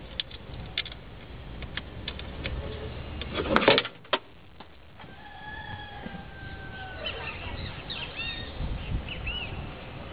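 Scattered metal clicks from hand work at an engine's throttle body, with one short, loud clatter about three and a half seconds in. Birds call and chirp through the second half.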